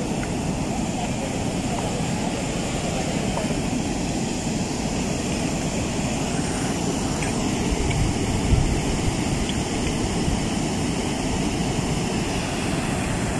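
Water rushing steadily over a low weir, with wind rumbling on the microphone.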